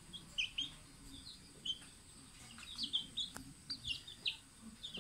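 Young junglefowl peeping with short, high chirps in quick scattered runs while they feed, with a few sharp clicks in between.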